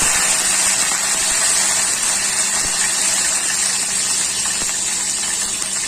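Curry leaves sizzling loudly as they hit hot oil with whole cumin seeds: a steady spitting hiss that eases slightly.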